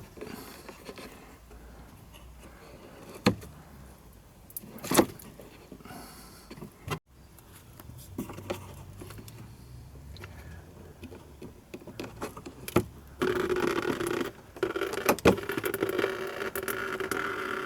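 Scattered clicks and light scraping of parts being handled and unclipped. About 13 seconds in, a louder steady hum starts, breaks off briefly, then carries on.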